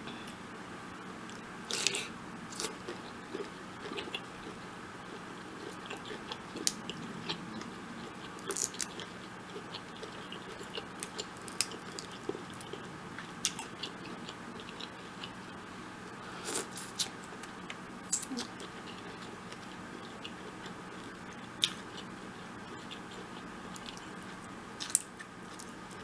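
Close-miked eating of a sauce-drenched seafood boil: biting and chewing with many sharp, irregular clicks and crunches and wet mouth sounds.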